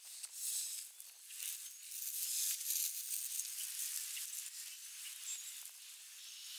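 Red-tailed hawk feeding on a rabbit carcass: a hissing rustle full of small clicks and crackles as it pulls and tears at fur and flesh in dry grass, loudest in the middle.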